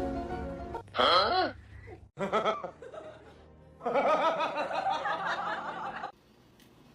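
Music, then short bursts of laughter with wavering pitch: a brief one about a second in and a longer one from about four to six seconds.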